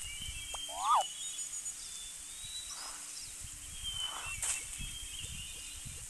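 Birds chirping with thin whistled calls, a louder quick upward chirp about a second in, over rustling and low outdoor background noise.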